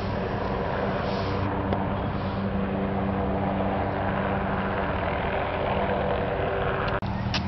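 Steady hum of a car engine with road noise from a slowly moving car, one low even tone throughout; the sound drops out sharply for a moment near the end.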